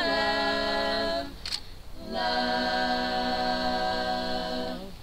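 Small group of women singing a cappella in harmony: a note held for about a second, a short break, then a long held chord of nearly three seconds that stops near the end.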